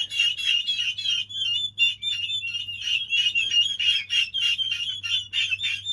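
A flock of six-week-old turkey poults peeping and whistling without pause, many short high-pitched piping calls overlapping.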